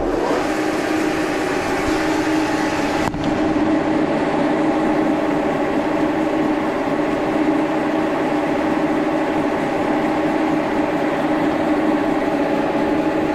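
Milling machine switched on with a sudden start, its motor and geared spindle then running steadily at about 1,000 RPM with a fly cutter turning free, not yet cutting. The mill runs off a rotary phase converter, which adds to the steady hum.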